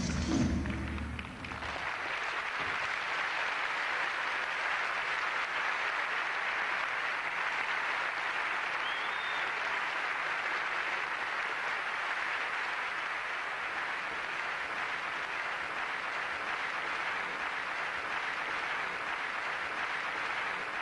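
Large audience applauding steadily, after the act's music cuts off about a second in.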